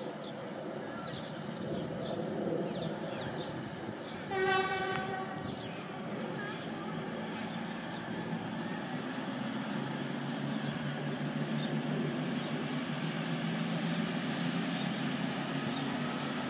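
V/Line VLocity three-car diesel multiple unit departing: one short horn blast about four seconds in, then its diesel engines running and building as it pulls away, with a faint rising whine near the end.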